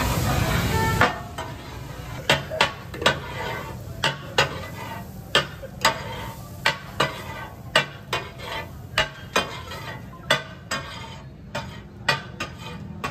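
A metal spatula scraping and clanking on a large flat iron tawa griddle as fish katakat is stirred and chopped, over the sizzle of frying. A loud sizzle drops away about a second in, and sharp clanks follow, about one or two a second.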